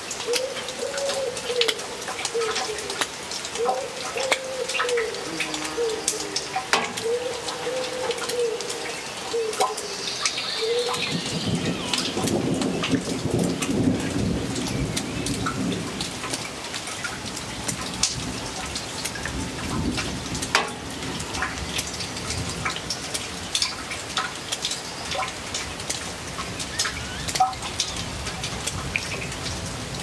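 Steady rain pattering and dripping, with many sharp drip ticks. A low rumble of thunder rolls in about eleven seconds in and dies away about ten seconds later. During the first ten seconds a bird calls with low, repeated, wavering notes.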